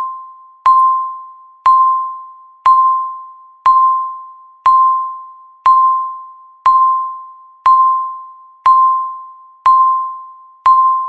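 Countdown timer beeping once a second, eleven times: each beep is a single clear pitch struck sharply that fades away before the next.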